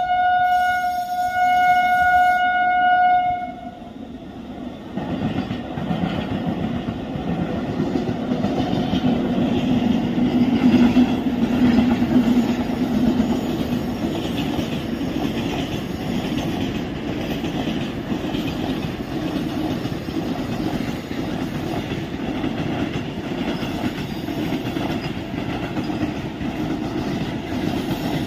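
Electric locomotive horn sounding one steady blast of about three seconds, then the continuous rumble and wheel clatter of a long goods train passing, hauled by two electric locomotives with loaded coal wagons and covered wagons rolling by.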